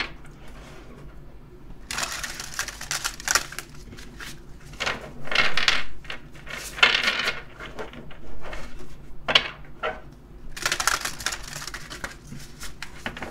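A deck of tarot cards being shuffled by hand: quick bursts of cards flicking and slapping against each other, in several separate runs about a second long.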